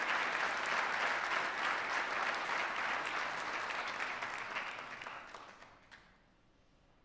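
Audience applauding in a large auditorium, the clapping dying away about five seconds in, with a last lone clap just before it stops.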